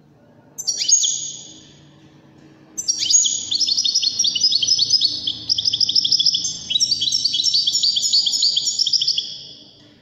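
European goldfinch singing: a brief burst of notes about half a second in, then, from about three seconds in, a long song of fast, rapidly repeated high notes that carries on almost to the end.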